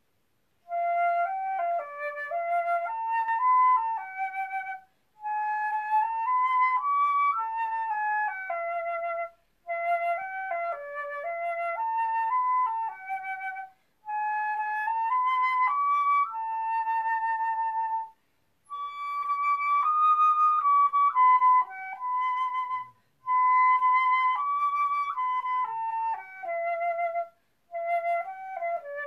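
Solo concert flute playing a hymn melody unaccompanied, in short phrases of about four seconds with brief pauses between them.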